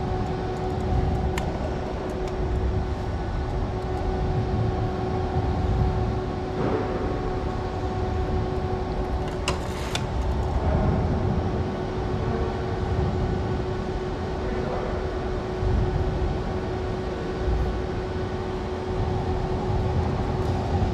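Go-kart driving laps, heard from on board: a continuous low rumble with a steady whine, and a brief rattle about ten seconds in.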